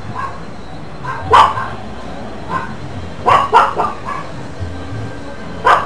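A dog barking: single barks and short runs of two or three. The loudest bark comes about a second and a half in.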